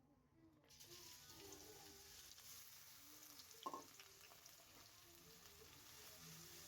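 Food frying in hot oil in a pan: a steady sizzle that starts suddenly about a second in, with a single clink about halfway through.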